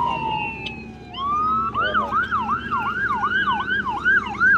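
Police boat siren: a slow falling wail, then a little over a second in it switches to a rapid yelp, rising and falling about three times a second.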